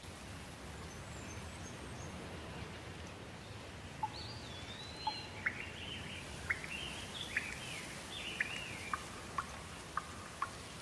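Steady rain falling, with songbirds calling over it. A few faint high calls come near the start; from about four seconds in, a bird sings gliding whistled phrases mixed with sharp chip notes, repeating to the end.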